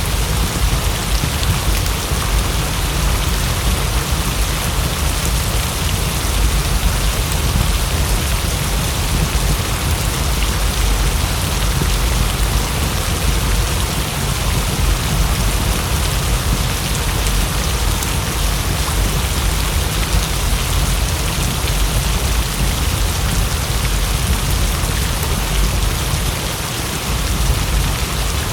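Heavy rain falling steadily: a dense, even hiss with a deep continuous rumble underneath.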